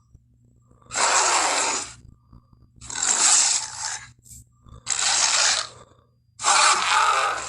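Baryonyx dinosaur sound effect: four breathy, hissing growls, each about a second long, with short pauses between them, over a faint steady low hum.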